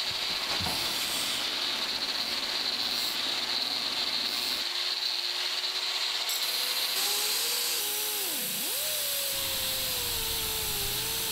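Power tool running: a steady rushing noise throughout, and from a little past halfway a motor whine that wavers, dips sharply once and climbs back up.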